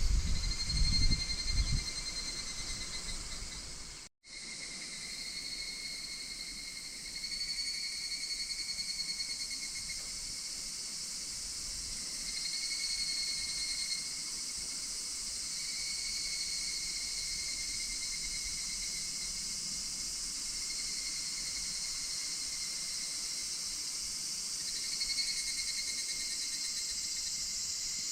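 Higurashi evening cicadas calling: repeated trilling phrases, each a second or two long, rise and fade over a steady high insect chorus. A low rumble sounds in the first two seconds, and the sound cuts out briefly about four seconds in.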